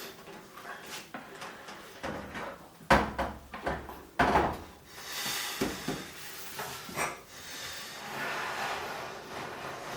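Handling noise: a run of irregular knocks and clicks, the loudest about three and four seconds in, with two stretches of scraping.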